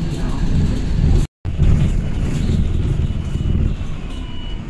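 Low, steady rumble of road traffic, broken by a sudden silent cut about a second in. Short high beeps come near the end.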